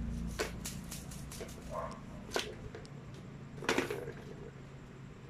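Scattered sharp plastic clicks and knocks from a tiered plastic cat track tower with balls inside, as a cat paws at it; the two loudest knocks come about two and a half and nearly four seconds in.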